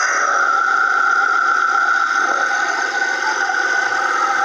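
Peugeot car engine idling steadily, with a steady high-pitched whine running over it.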